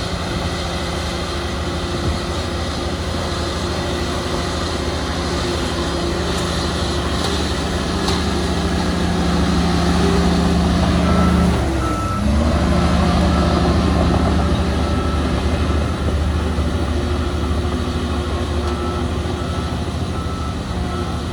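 Heavy diesel earthmoving machine running steadily, its engine note dipping briefly about halfway through. A reversing alarm beeps in two spells in the second half.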